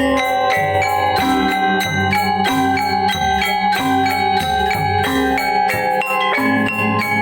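Balinese gamelan gong ensemble playing a pelegongan (legong-style) piece: bronze metallophones struck in quick, even runs of notes over a steady low gong-and-drum pulse.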